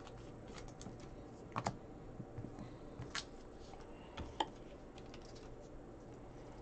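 Faint, irregular light clicks and taps of baseball cards and clear plastic card sleeves being handled and slid together.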